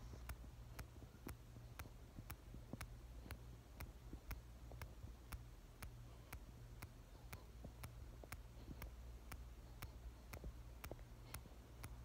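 On-X mechanical aortic heart valve ticking: faint, crisp, evenly spaced clicks about twice a second. The bileaflet carbon valve's leaflets click in time with the heartbeat. A low steady hum runs underneath.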